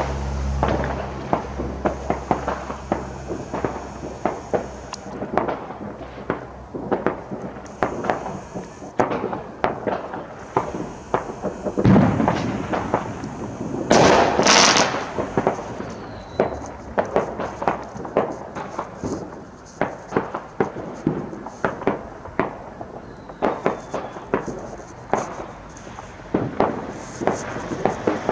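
Fireworks going off all around: a dense run of sharp bangs and pops in quick succession, with two louder booms about 12 and 14 seconds in.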